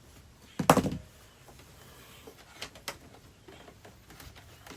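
Hard parts and tools being handled during electrical work: a short clatter of several knocks a little under a second in, then two sharp clicks close together near the middle and a few faint ticks.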